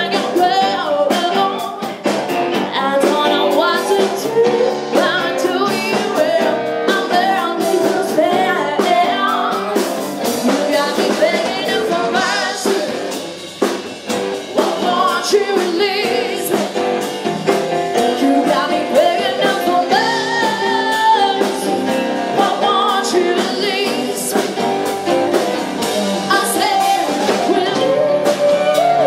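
Live band playing: a woman singing into a microphone over electric guitar, keyboard and drum kit.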